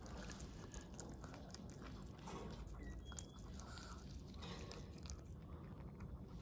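Pomeranian eating diced boiled egg and carrot from a bowl: faint, irregular chewing and licking, a run of small wet clicks.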